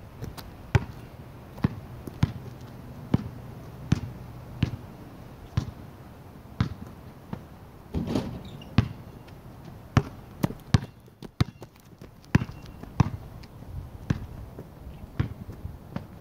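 A basketball being dribbled on asphalt, sharp single bounces at an uneven pace of roughly one a second. About halfway through comes a broader, muddier thud as the ball meets the hoop on a dunk attempt.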